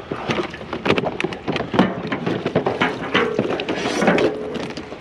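Scrap items being handled and pulled from a pile: a quick, irregular series of knocks, clatters and rattles, with a faint ringing tone about three to four seconds in.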